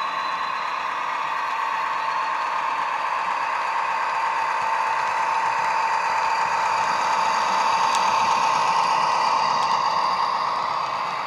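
Bachmann OO-gauge Class 43 Warship model locomotive's Loksound 5 sound decoder playing a diesel engine running under power through its small 25x25x7 megabass speaker. The engine sound grows louder about eight seconds in as the locomotive passes close by, then eases off.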